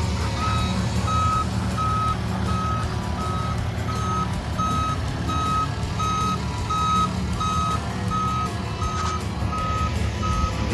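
Vehicle reverse alarm beeping at an even pace, about one and a half beeps a second, over a running engine, as a machine backs up during loading.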